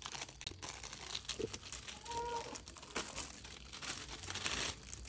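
Clear plastic shrink wrap being pulled off a cardboard box, crinkling and crackling unevenly.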